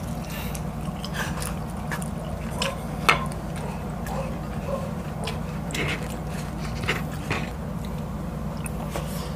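Close-miked eating: a bite into a hot dog, then chewing with scattered wet mouth clicks and smacks, the sharpest about three seconds in, over a steady low hum.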